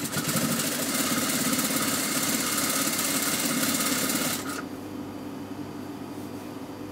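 Sewing machine stitching a seam at speed in a fast, even run for about four and a half seconds, then stopping. A quieter steady hum remains.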